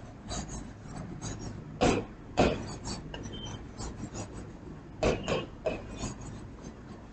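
Marker pen scratching on a whiteboard in short strokes as a word is written.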